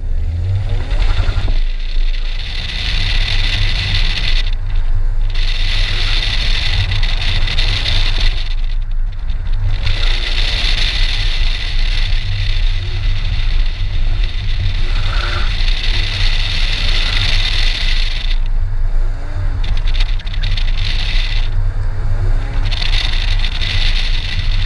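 Saturn Ion Redline's supercharged 2.0-litre four-cylinder pulling hard through an autocross run, heard from outside the driver's door with heavy wind rush. A bright hiss swells and drops away several times as the car accelerates and brakes between cones.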